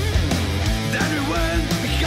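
Background rock music.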